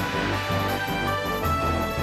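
Instrumental end-credits theme music of a TV adventure series: held notes over a bass line that moves from note to note.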